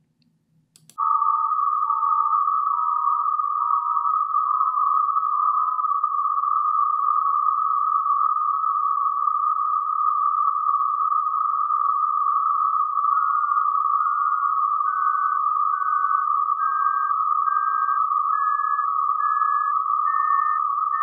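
Psychoacoustic masking demo. A steady hiss of narrowband noise centred on 1200 Hz comes in about a second in, and short sine-tone beeps sound in pairs, each pair a step higher in pitch, from 900 Hz up to 1800 Hz. The beeps fade into the noise as they approach its centre frequency, masked by it, then can be heard again above it.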